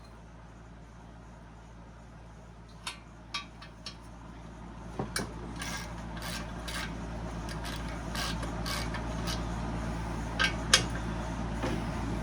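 Hands working on metal saw parts during disassembly: scattered light clinks and taps with scraping and rubbing of metal, over a steady low hum. The handling grows busier about halfway through, with a sharper pair of knocks near the end.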